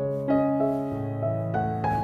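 Background piano music: a melody of notes changing every half second or so over held bass notes.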